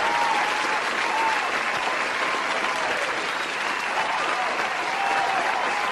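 Audience applause at a steady level, dropped in as a canned sound effect to mark a joke's punchline.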